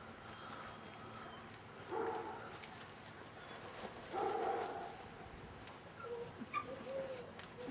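38-day-old Staffordshire Bull Terrier puppies whimpering and yipping, with louder cries about two and four seconds in and short whines near the end, among light clicks.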